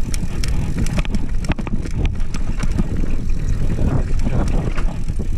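A mountain bike being ridden down a rocky slickrock trail: a continuous low rumble of ride noise on the mounted camera, with frequent sharp clacks and rattles as the tyres and frame knock over rocks and ledges.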